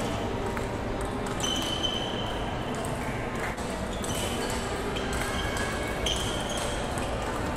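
Table tennis rally: the plastic ball clicking off the bats and pinging as it bounces on the table, a hit or bounce about every half second, over background chatter.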